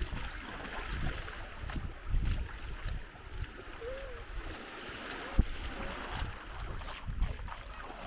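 Wind gusting on the microphone as uneven low rumbles over a steady wash of sea waves, with one sharp knock about five and a half seconds in.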